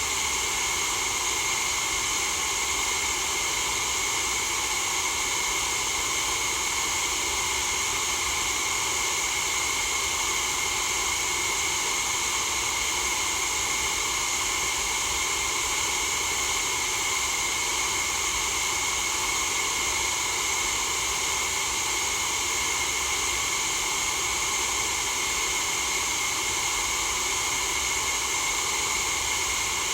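Steady white-noise hiss that never changes in level, brightest in a high hiss with weaker bands of rushing noise lower down.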